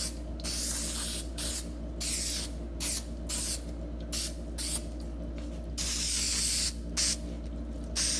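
Aerosol can of 3M multi-purpose spray adhesive hissing in repeated short bursts with brief gaps, one burst a little longer about six seconds in, as glue is sprayed along the edges of a vinyl sheet.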